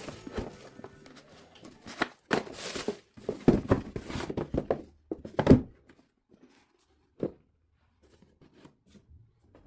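Cardboard shoe box and paper packing being handled: rustling and tearing, with a run of knocks and thumps about halfway through, the loudest near the middle, and one more thump a couple of seconds later.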